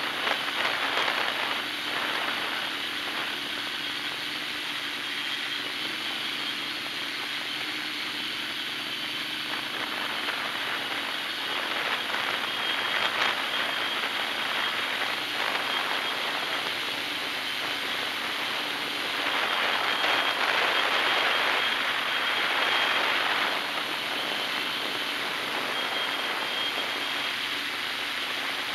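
Hexacopter's electric motors and propellers whirring steadily in flight, heard close up from a camera on the frame and mixed with wind rush, with a thin high whine on top. The sound swells louder for a few seconds past the middle.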